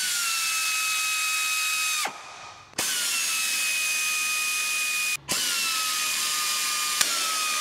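Power tool driving a socket on a long extension, whining steadily as it spins out the 10 mm oil pan bolts. It runs in three spells of about two seconds each, and each spell starts with a quick rise in pitch.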